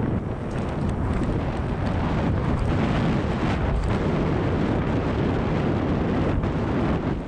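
Mountain bike riding fast down a dirt trail, heard from a camera on the rider: steady wind noise on the microphone over the sound of the tyres on packed dirt, with small clicks and rattles from the bike.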